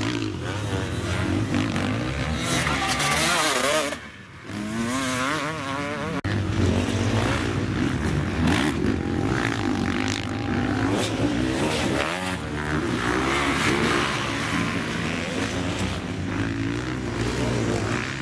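Enduro dirt bike engines revving up and down, the pitch rising and falling with the throttle. The sound drops away briefly about four seconds in.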